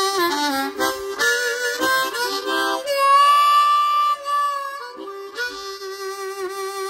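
Solo blues harmonica playing a riff: quick bent notes, then a long high note held about three seconds in, then back to a lower held note with an even pulsing.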